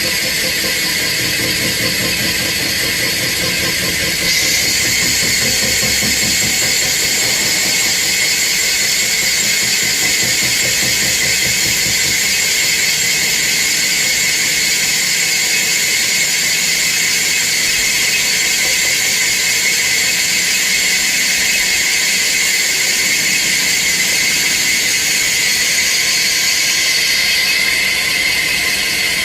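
CNC lathe boring out an inside diameter, the cut giving a steady high-pitched squeal. A brighter, hissier high tone joins about four seconds in and drops away near the end.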